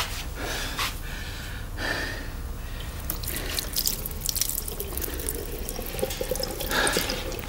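Water dripping and splashing, as from a tap running into a sink, in scattered short bursts, with a sharp knock right at the start.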